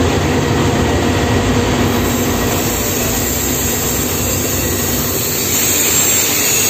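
Ingersoll Rand turbine air starting motor running on compressed air in a bench test after overhaul, a steady loud rush of air with a low hum, checking that the shaft turns. The high hiss grows stronger about two seconds in.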